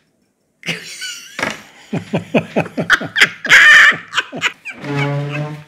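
A woman and a man laughing hard together, starting about half a second in: quick, rhythmic ha-ha bursts, loudest a little past the middle.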